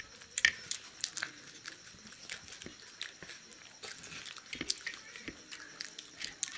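Two people biting into and chewing fried pakoras, with irregular sharp clicks and smacking mouth noises.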